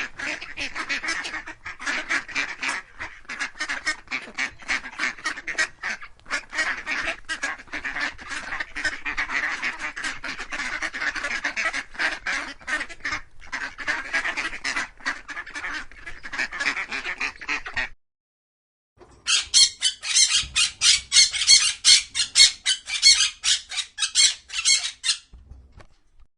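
A flock of waterfowl calling continuously in dense, overlapping honks and quacks. After a brief break it gives way to a louder, rapid run of high, sharp calls, about five a second, that stops shortly before the end.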